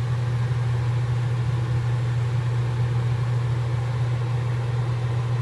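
A steady, unchanging low machine hum, like a motor or engine running, with a noisy hiss above it.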